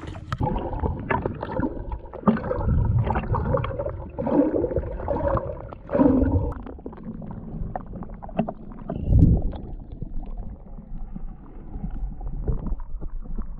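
Shallow backwater sloshing and gurgling around a camera dipped beneath the surface, heard as muffled, irregular underwater rumbles and splashes, with one louder low surge about nine seconds in.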